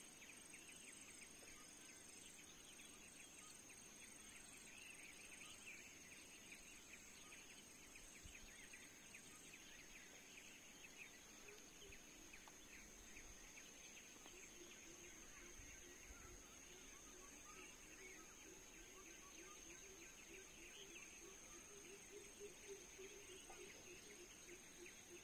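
Faint forest ambience of insects: a steady high whine under fast chirring. A low pulsing call joins about halfway through.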